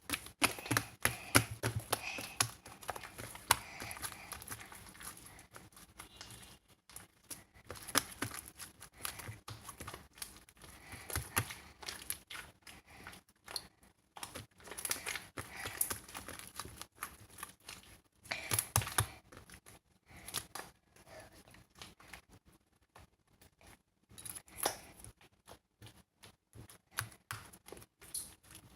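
Close, irregular crinkling, tearing and clicking of something being handled, in clusters with short pauses.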